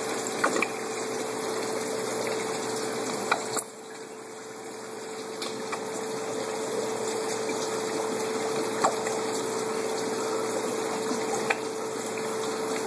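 Steady hum and rushing of an aquarium pump and moving water, with a few light clicks.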